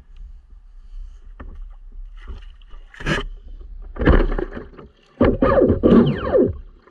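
On-board sound of a 6S electric RC speedboat barely moving in shallow water: low rumble, then three short loud bursts from about three seconds in as the motor is briefly blipped, the last with tones falling in pitch as it winds down, with water splashing at the hull.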